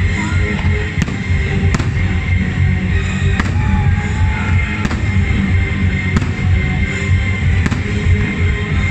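Fireworks show: aerial shells bursting with about six sharp bangs at irregular intervals, over loud music played throughout.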